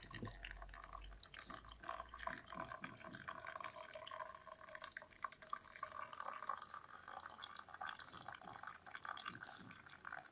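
Faint drips and trickles of just-boiled water in a cup, with many small clicks.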